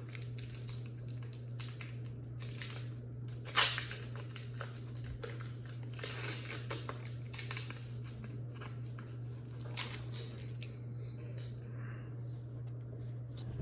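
A Pokémon card booster pack's foil wrapper being torn open and crinkled, with one sharp rip about three and a half seconds in and softer rustling after, over a steady low hum.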